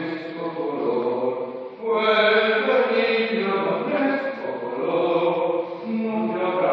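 Voices chanting in long held, pitched notes, growing louder and fuller about two seconds in.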